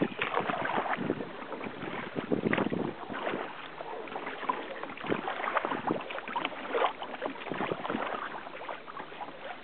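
Choppy sea water sloshing and splashing against a kayak's hull in irregular slaps, with wind noise on the microphone.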